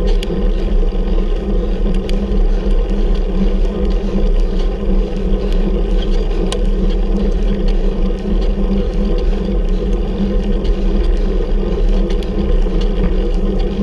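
Steady rumbling wind and road noise on the microphone of a camera riding along on a bicycle climb, with a few faint ticks.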